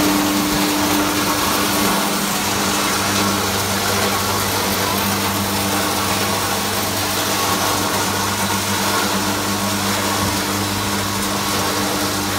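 Jinhengli PC 5065 plastic crusher running steadily with no material being crushed: its electric motor and rotor give an even hum with no knocks or crunching.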